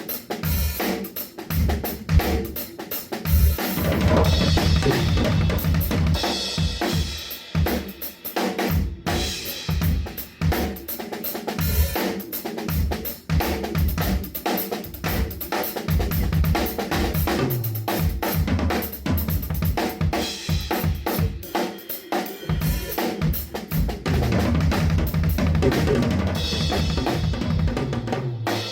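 Drum kit played in a steady groove, with bass drum, snare and rim shots, and cymbal crashes washing in about four seconds in and again near the end, over a low bass part that moves in steps.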